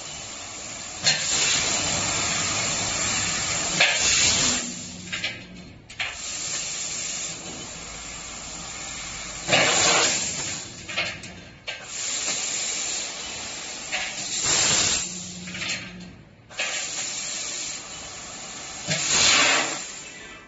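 ACME three-chuck fiber laser tube cutting machine cutting a rectangular metal tube: a loud hiss of assist gas from the cutting head. It comes in stretches of a few seconds that start and stop abruptly, with short pauses between cuts.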